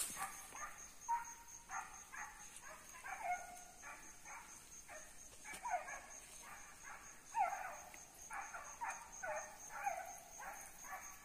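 A pack of hunting hounds baying faintly on a running paca's trail, a string of barks and yelps about two a second, some dropping in pitch.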